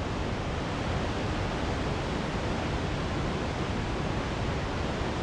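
Waterfall heard from close by: a steady, even whoosh of falling water, the noisy, fluffy rush spread from a low rumble up to a high hiss.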